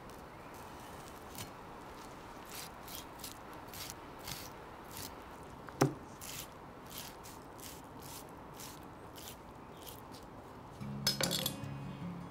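A knife slicing through raw pork skin, cutting it away from a pork leg on a wooden board in a series of short, soft slicing strokes. There is one sharp knock about six seconds in, and music comes in near the end.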